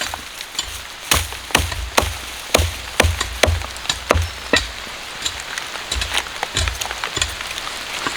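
Irregular sharp taps and clicks, a few a second and uneven in strength, over a patchy low rumble.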